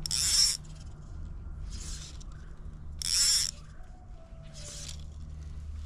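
Fly line being stripped in by hand through the fly rod's guides, a rhythmic series of swishing pulls about one every second and a half, retrieving the fly.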